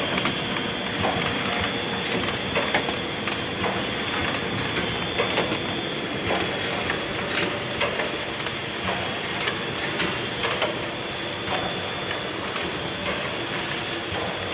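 Automatic plastic cup counting and packing machine running: a steady mechanical hum with a faint high whine, and irregular clicks and clacks of its moving parts throughout.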